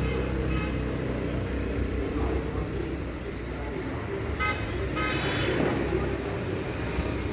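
Steady low rumble of road traffic, with a vehicle horn tooting twice, briefly, about four and a half and five seconds in.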